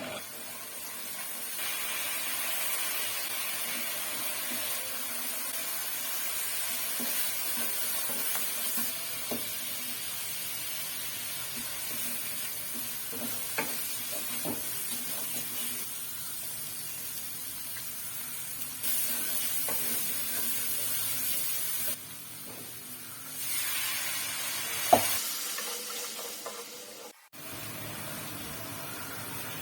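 Food sizzling in hot oil in a pan while being stirred, with light utensil clicks on the pan and one sharp knock a little before the end. The sizzle changes level abruptly several times.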